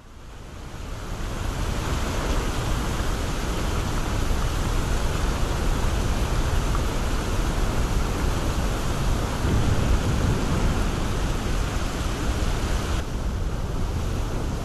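Steady roar of rushing waterfalls, fading in over the first second or two. Near the end the hiss loses its top and carries on as a duller, lower rush.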